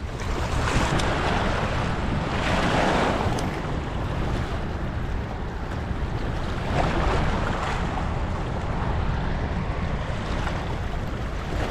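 Floodwater rushing and churning through a spillway: a steady rush of turbulent water, with wind buffeting the microphone.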